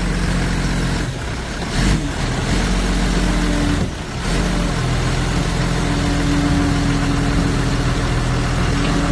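Forklift engine running steadily as it carries a car clamped on its forks. A held higher tone comes and goes over it, and the sound dips briefly about a second in and again about four seconds in.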